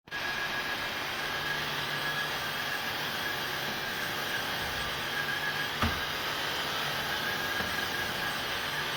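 Tineco iFloor 5 Steam wet-dry floor vacuum running steadily, a constant suction hum with a faint high whine, starting suddenly at the beginning; a short knock about six seconds in.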